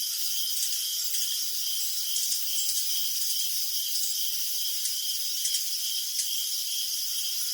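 Crickets chirping: a dense, steady high chorus, with one nearer cricket's short chirp repeating evenly about twice a second.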